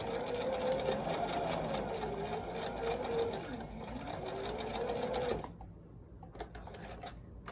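Brother electric sewing machine stitching, its motor pitch rising and falling as it backstitches over the end of the seam to lock it. It stops suddenly about five and a half seconds in, followed by light clicks of the fabric being handled.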